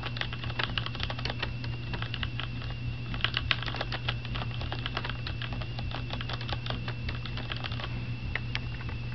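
Fast typing on a Corsair mechanical keyboard with Cherry MX Red linear switches: a dense run of keystrokes that thins to a few single strokes near the end.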